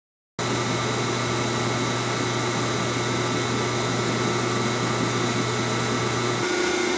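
Steady machine noise from an electric motor or fan running, a constant hiss with a hum and a few fixed tones, starting abruptly just after the start. Near the end the low hum drops away and a higher tone comes up.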